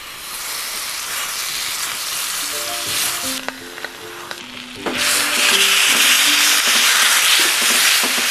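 Butter sizzling in a hot steel tray on a wood stove as abalone fries in it. The sizzle eases for a moment a few seconds in, then grows louder from about halfway.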